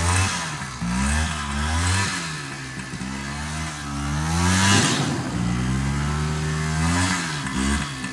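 ATV engine revving up and down repeatedly, its pitch rising and falling, with a brief rushing noise about five seconds in.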